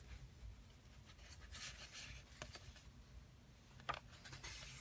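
Faint rustle of book pages being handled and turned, with a short tap about four seconds in as a page is lifted.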